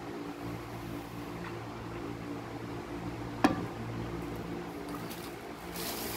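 A single sharp metallic clink about three and a half seconds in, as a stainless steel bowl is set down on a table, over a steady low hum. Near the end, a plastic rustle begins.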